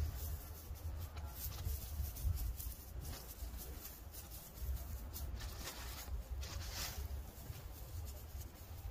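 Dry grass clippings rustling and scratching as hands pull them about and spread them over soil as mulch, in irregular rustles that are loudest around five to seven seconds in. A low steady rumble runs underneath.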